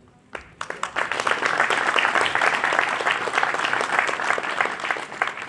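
Audience applause, starting about half a second in and quickly swelling to full clapping, then beginning to die down near the end.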